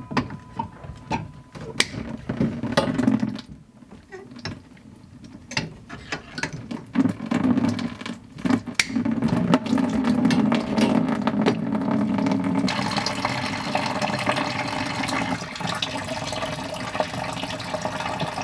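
Water draining from a cut PEX supply line into a plastic bucket. It starts as scattered drips and knocks, becomes a steady pour about halfway through and grows louder about two-thirds of the way in. The house's plumbing is emptying out through its lowest point.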